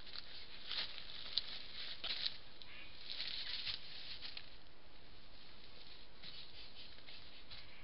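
Steady hiss from a trail camera's built-in microphone, with scattered faint rustles and ticks, several in the first few seconds and a few more near the end.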